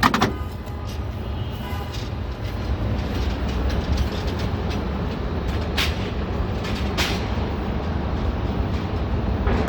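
Steady low rumble of city street traffic, with a few sharp clicks or knocks at the start and about six and seven seconds in.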